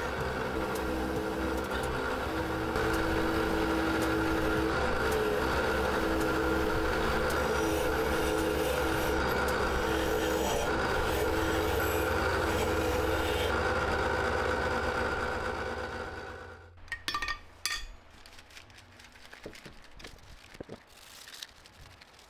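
Drill press running with a finishing wheel in its chuck while a forged steel keychain is held against the spinning wheel, a steady grinding and rubbing sound. It dies away about sixteen seconds in, leaving quiet handling clicks and rubbing.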